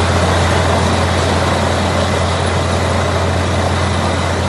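Truck-mounted borewell drilling rig running under load while drilling: a loud, steady drone with a strong low hum, and a hiss as compressed air blows wet cuttings out of the bore.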